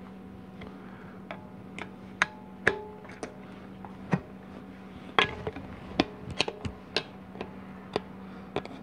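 Metal clicks and taps as a 700R4 transmission's 2-4 band servo is pressed into the case and secured, some taps ringing briefly. The clicks come irregularly, thickest from about five seconds in, over a steady low hum.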